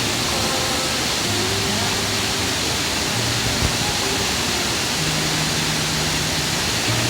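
Steady rushing of a fast mountain stream, an even hiss of white water. Soft held notes of background music sound faintly underneath.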